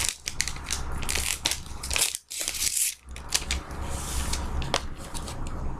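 Wrapper of a trading-card box topper crinkling and tearing as it is opened by hand, in crackling spells with two short pauses, about two and three seconds in.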